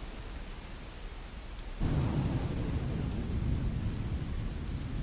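Steady rain, with a low rumble of thunder that breaks in suddenly about two seconds in and rolls on, slowly easing.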